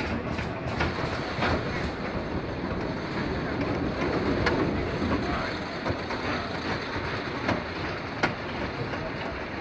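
Roller coaster train rolling along its track, with a run of quick clicks early on and a few single sharp clanks later.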